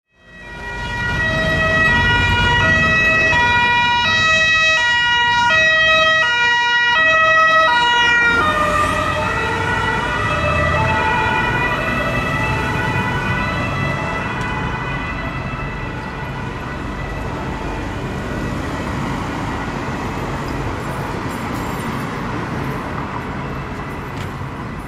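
Swiss police car's two-tone siren alternating between a high and a low note. About 8 seconds in, the pitch drops as the car passes. The siren then fades as the car drives away, leaving city traffic noise.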